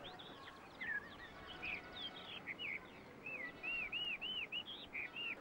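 A songbird calling in short whistled chirps, turning in the second half into a quick run of arching, rise-and-fall notes, over a steady faint background hiss.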